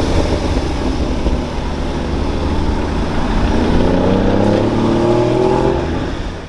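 A supercar's engine under hard acceleration, its pitch climbing steadily from about four seconds in. The sound fades out quickly near the end.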